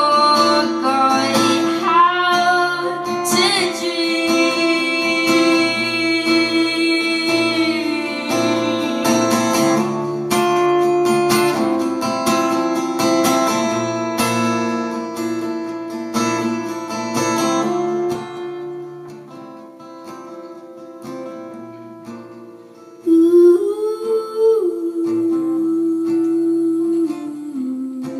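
Live guitar-and-voice song: ringing guitar notes under a held, wavering vocal line. The playing thins and grows quieter after about eighteen seconds, then the voice swells again near the end.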